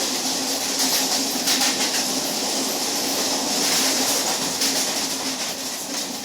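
Twelve-coach ICF electric local train running along the line, heard on board: a steady rush of wheel and wind noise with a steady low hum and irregular clicks from the rails.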